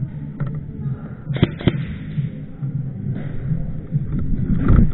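Two sharp airsoft shots about a third of a second apart, over a steady low rumble, with a heavier thump near the end.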